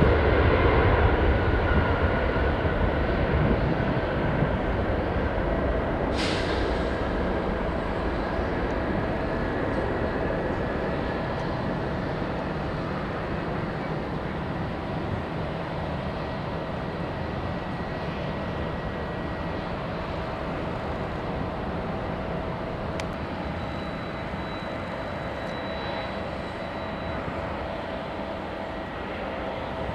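Jet airliner's engines: a steady rushing noise with a high whine in it, loudest at first and slowly fading as the aircraft moves away. A single sharp click about six seconds in.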